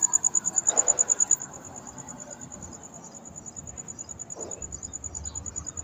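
A cricket chirping: a steady train of high-pitched pulses, about ten a second, loud for the first second and a half and then fainter.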